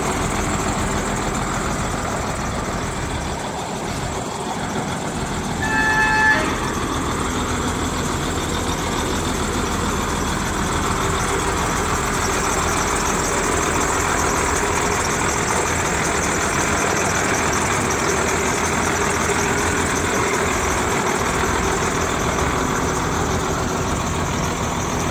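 Ford CF8000 truck engine idling steadily, with a short vehicle horn toot about six seconds in.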